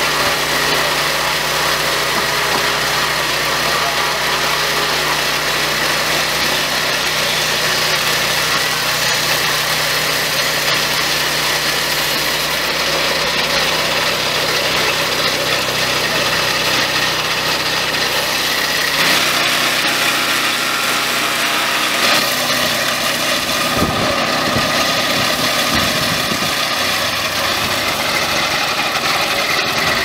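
The petrol engine of a swing-blade portable sawmill running steadily, its tone changing a little twice past the middle.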